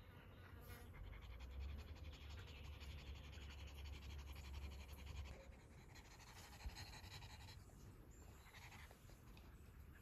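Near silence: faint outdoor ambience, with a low rumble during the first half and a single faint click near the end.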